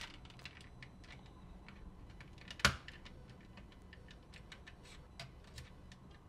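Light, irregular clicks and ticks of a screwdriver working against the plastic shell of a Sony WM-FX491 Walkman while prying at its locking tabs, with one louder, sharper click a little under three seconds in.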